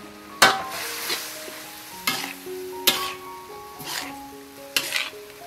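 Metal spatula stirring and scraping a sizzling wok of shrimp, minced meat and corn, in about five separate strokes over the steady sizzle of frying.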